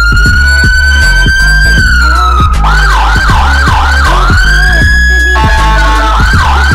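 Senken YD100-i electronic siren switched between tones: a slow rising wail that drops away, runs of fast rising-and-falling yelp sweeps, a brief steady two-note tone about five seconds in, then the wail rising again. A low beat runs underneath.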